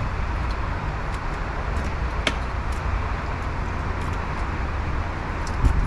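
A sharp click about two seconds in, and a few lighter clicks near the end, from the RV door's keyed deadbolt and handle lock being worked by hand. Under them runs a steady low outdoor rumble.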